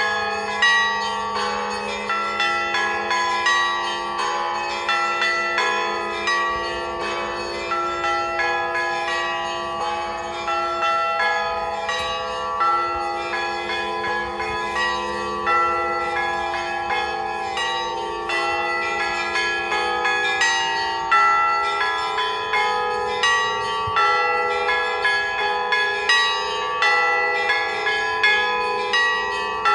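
Orthodox church bells ringing a continuous peal: small high bells struck in a fast, busy pattern over the sustained hum of larger, deeper bells.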